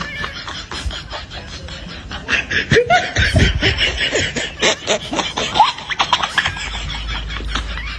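A person laughing in a run of giggles and snickers, loudest from about two seconds in to about six seconds in.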